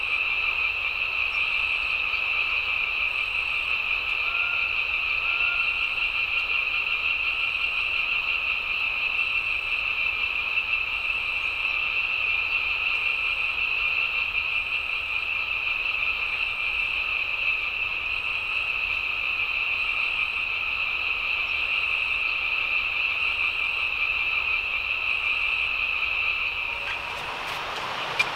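A dense chorus of frogs calling in a steady, unbroken wash. Near the end it drops away sharply, and a single click follows.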